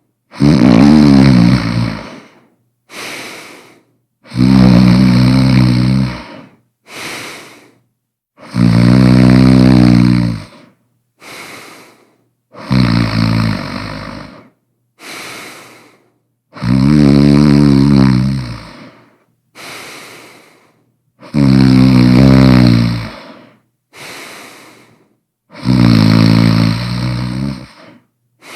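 A person snoring loudly and regularly: a long snore about every four seconds, seven in all, each followed by a shorter, much quieter breath.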